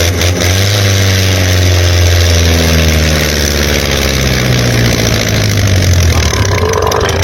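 Engine running at a steady low idle, a continuous low drone whose pitch drifts slightly.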